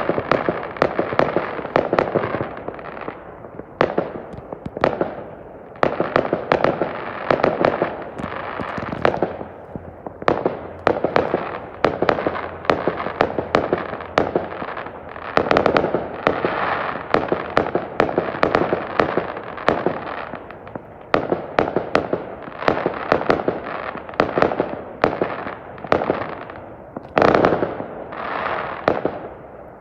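Fireworks going off in volleys of rapid, sharp bangs. Each volley leaves crackling that fades before the next one starts, with short lulls between them.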